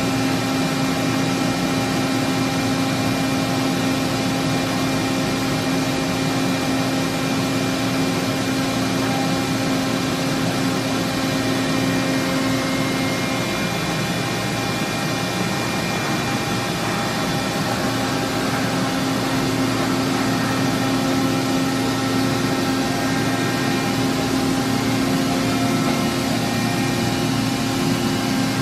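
Toshiba BTD-200QF CNC horizontal boring mill running under power: a steady mechanical hum with several held tones. The strongest tone drops out about halfway through and comes back a few seconds later.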